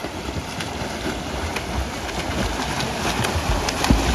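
Steady rush of waterfall water, with wind buffeting the microphone as a low rumble.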